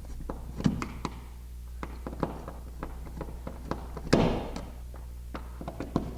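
Scattered light clicks and taps of a screwdriver and hands working the screws out of an old alarm keypad's wall-mounted back plate, with a louder handling noise about four seconds in. A low steady hum runs underneath.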